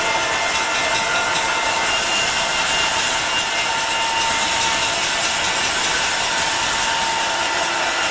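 Live improvised soundscape evoking textile spinning machinery: a loud, steady, dense mechanical noise with several high held tones running through it, unchanging in level.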